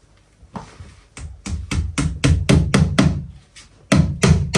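Hammer blows in quick even succession, about four a second, with a short break about three and a half seconds in before the blows resume.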